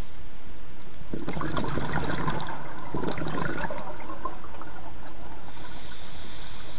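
Scuba diver's exhaled breath bubbling out through the regulator underwater: a burst of bubbling starts about a second in and lasts about three seconds, over a steady underwater hiss.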